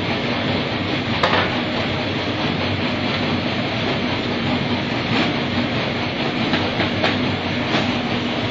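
Snack-bar packaging machine running: a steady mechanical hum and clatter with a low steady tone, and a few sharp clicks scattered through it.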